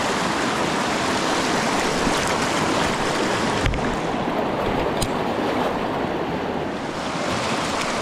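Steady rush of a fast-flowing river running high, with a single low knock a little past halfway through and a small click about a second later.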